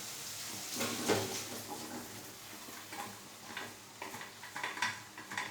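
Scattered light knocks and scrapes of a spoon against a cooking pan as boiled chickpeas are tipped into the masala and stirred.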